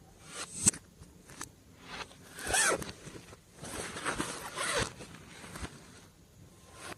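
Glossy slime being squished and stretched by hand, giving a few bouts of sticky crackling with sharp pops and clicks.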